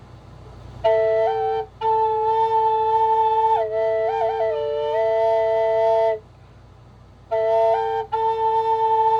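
Flute music: a low note is held steady while a second melody line steps up and down above it. It plays in two long phrases with about a second's pause between them, and short breaks like breaths.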